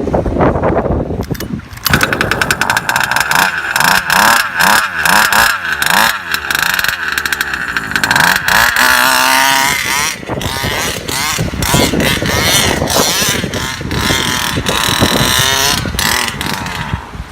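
Small two-stroke petrol engine of a King Motor 1/5-scale RC truck running and being revved again and again in short blips, with a longer climb in revs about nine seconds in.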